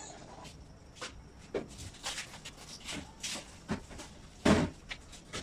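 Irregular knocks and clicks of objects being handled, with one much louder, heavier thump about four and a half seconds in.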